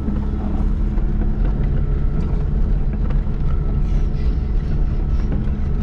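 Zastava Yugo's engine running steadily, heard from inside the cabin while driving on a dirt track, with scattered light knocks and rattles.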